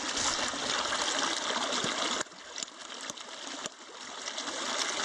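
Shallow creek water rushing and splashing over rocks, a steady hiss of running water. It drops in level a little past the middle and swells back near the end, with a few light clicks.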